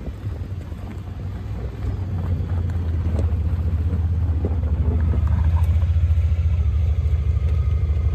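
Side-by-side UTV engine running with a steady low rumble, growing louder over the first few seconds.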